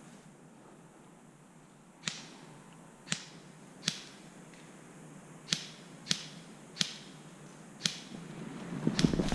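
Airsoft gunfire: seven sharp single cracks at uneven intervals, each dying away quickly. A low rumbling noise builds near the end.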